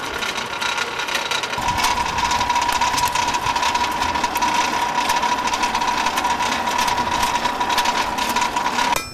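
A running machine with a fast, even clatter and a steady high whine that comes in about a second and a half in; the sound cuts off suddenly near the end.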